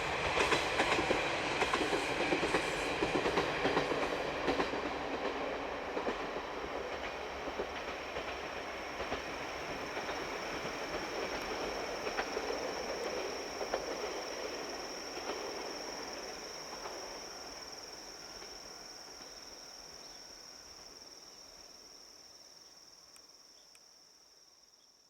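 KiHa 47 diesel railcar running along the track, its wheels clicking over rail joints, fading steadily away into the distance. As it fades, a steady high-pitched whine comes to the fore.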